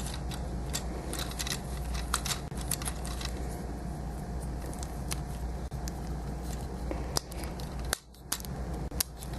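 Plastic clicks and taps of a Transformers Prime Ratchet action figure's parts being moved and snapped into place by hand during transformation, irregular and busiest near the start and again near the end, over a steady low hum.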